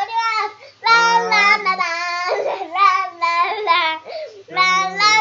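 A young girl singing in a high voice, in a few phrases with short pauses between them.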